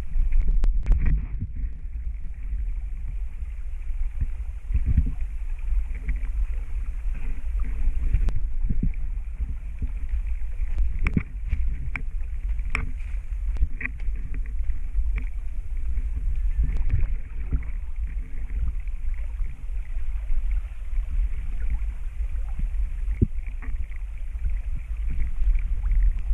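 River water flowing and sloshing around a person wading, over a steady low rumble, with a few sharp knocks near the middle.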